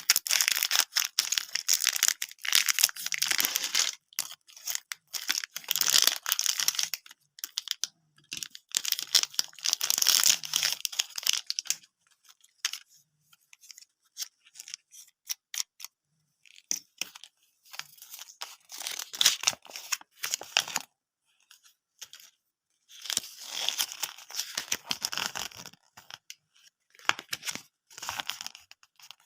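Plastic candy wrappers being torn open and crinkled in several bouts of crackling, with short quiet gaps between them.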